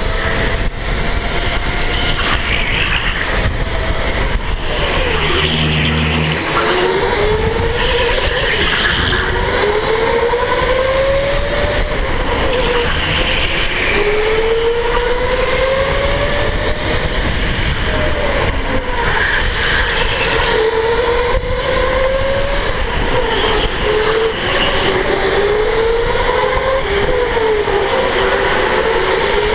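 Electric go-kart motor whining from the driver's seat, its pitch climbing as the kart accelerates and dropping as it slows for the next corner, again and again, over a steady rushing noise.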